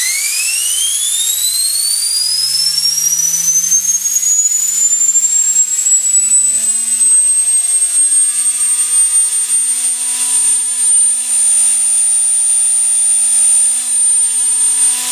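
Wolf Gang model steam turbine spinning up on steam. A high whine climbs steadily in pitch for about eight seconds, then holds steady at full speed, with steam hiss underneath.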